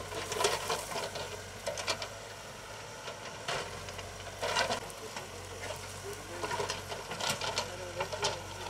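Hidromek backhoe loader digging: its diesel engine gives a steady low hum while the bucket scrapes and clatters against earth and stones in irregular bursts.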